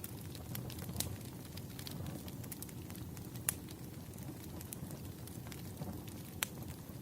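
Campfire crackling: a steady low rumble of burning with frequent small pops and three louder snaps, about a second in, halfway through and near the end.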